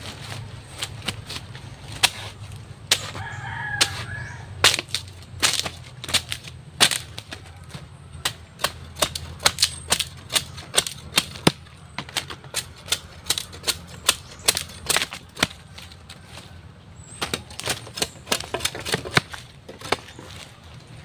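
Machete blade striking and chopping a green bamboo pole, splitting off strips: a run of sharp, irregular knocks, about one to two a second, coming fastest in the middle. A brief call is heard in the background about three seconds in.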